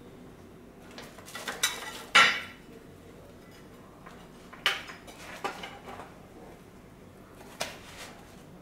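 Several clattering knocks from an aftermarket car stereo head unit being handled and shifted on a table. The loudest, with a brief metallic ring, comes about two seconds in; lighter knocks follow near the middle and toward the end.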